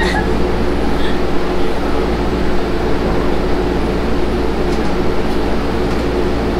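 Steady rumbling drone inside a moving Ferris wheel gondola, even in level throughout.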